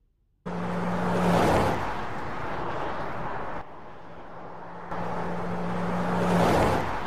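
Car pass-by sound effects: a rushing noise that starts suddenly, swells to a peak and eases off twice, about five seconds apart, with a steady low tone under each swell.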